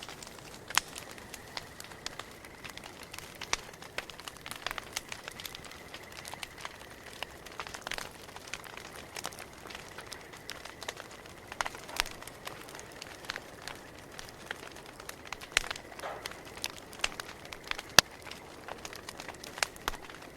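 Campfire crackling and popping: irregular sharp snaps over a faint steady hiss, with one louder pop near the end.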